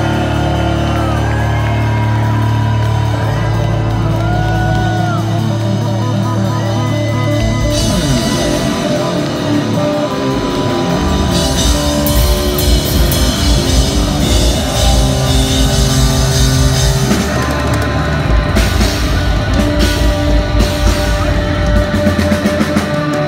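Live rock trio playing loud: electric guitar and bass, with high notes bending up and down over held low notes. From about eight seconds in, the drums drive hard with fast, even kick-drum strokes.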